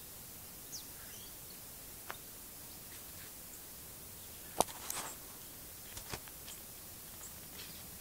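Quiet outdoor background hiss broken by a few sharp clicks and snaps, the loudest just past halfway, with faint high chirps from distant birds.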